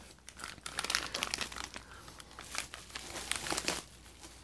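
Plastic packaging crinkling and rustling in quick, irregular crackles as hands rummage in a cardboard box and lift out a small part in a clear plastic bag.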